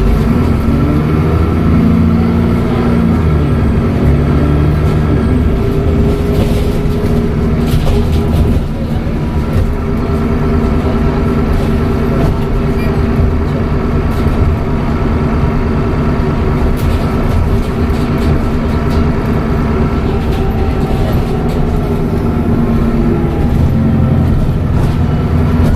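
Dennis Trident double-decker bus engine running under way with a steady turbo whistle over it. The engine note rises and falls in the first few seconds and again near the end as the bus pulls away and the Voith automatic gearbox changes gear.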